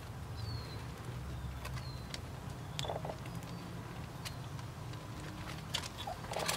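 Tabby cat and kittens tussling on gravel: scattered clicks and short scrapes of pebbles shifting under their paws, over a steady low rumble, with a few faint bird chirps in the first two seconds.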